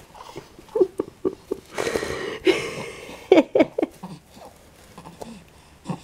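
Short, quick voice sounds in small runs, including three in rapid succession about three seconds in, with a breathy, noisy stretch around two seconds in.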